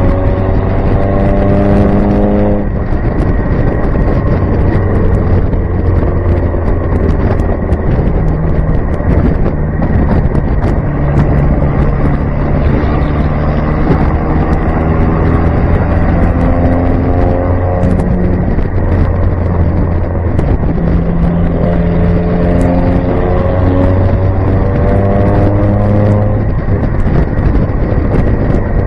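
1965 Datsun Fairlady Roadster's four-cylinder engine accelerating on the road, its note climbing and then dropping back as it shifts gear, about two and a half seconds in and again near the end. Steady wind and road rush fill the open cockpit underneath.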